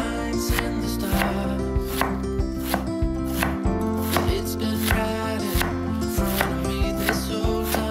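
A large knife shredding white cabbage on a wooden cutting board, each slice ending in a sharp knock of the blade on the board, about two strokes a second. Background music plays underneath.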